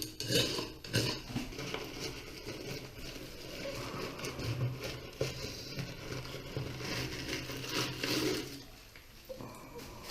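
Irregular clinking and scraping of metal and rubble, with a few sharper clinks in the first second or so.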